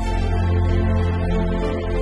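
Background music: a gentle instrumental track with guitar.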